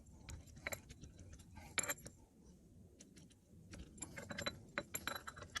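Light metallic clicks and rattles of parts being handled while the steering wheel hub is fitted and its wiring tucked in, with a sharper click about two seconds in and a run of clicks near the end.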